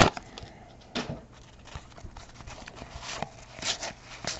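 A baseball card pack wrapper being torn open and pulled off a stack of cards: a few short crinkles and crackles, one about a second in and a cluster near the end.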